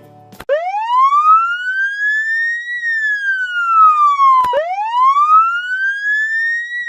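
Ambulance siren on its wail setting: one tone slowly rising, then falling, in cycles of about four seconds, dropping suddenly back down before each new climb. It is the slow wail pattern that is used on highways because it carries far.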